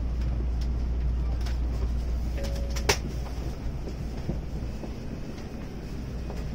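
Steady low rumble inside a Shinkansen passenger car, with a single sharp click about three seconds in.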